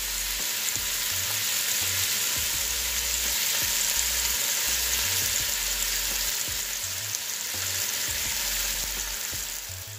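Marinated chicken pieces sizzling in hot oil in a Ninja Foodi's inner pot on the high sear/sauté setting, a steady frying hiss.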